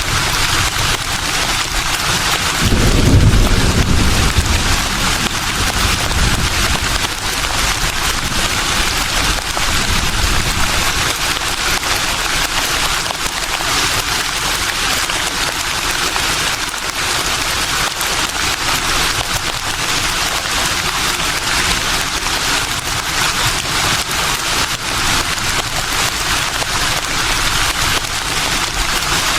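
Leaves rustling in a breeze: a steady, even hiss, with a low rumble swelling briefly about three seconds in.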